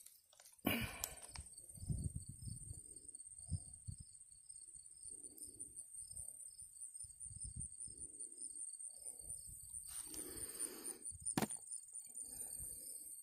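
Handling and rustling as shot-through tuna cans are picked up from the grass and turned over in the hand, with dull bumps and a few sharp clicks of the metal cans, one near the start and one near the end. A faint, evenly repeated high insect chirp runs in the background.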